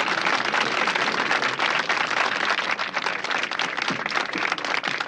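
Crowd applauding, a dense patter of many hands clapping.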